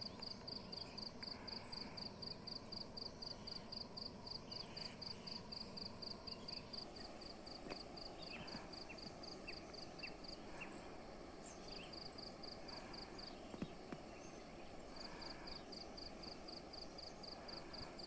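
An insect chirping in a high, even pulse of about four chirps a second, stopping and starting again twice, with a few faint short chirps in between. Underneath is a faint steady rushing sound, which is water splashing in the valley below.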